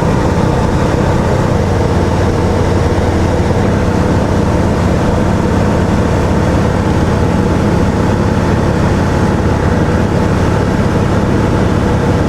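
Light aircraft's piston engine and propeller droning steadily in cruise, heard from inside the cockpit, with no change in pitch or level.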